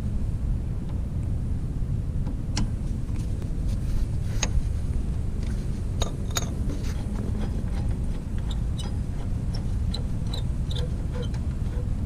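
Light metallic clicks of a ratchet and 5 mm hex socket being seated on and turning the pad pin of a Nissin front brake caliper: a few single clicks, then a quicker run of small ticks near the end, over a steady low rumble.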